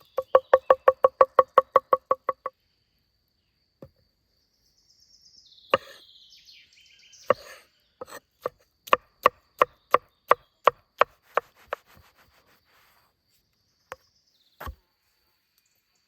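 Rapid chopping strokes on wood, each a sharp knock with a short ring. First a fast run of about five a second, then after a pause and some rustling a slower run of about three a second, ending in a few single knocks. A faint steady high whine runs underneath.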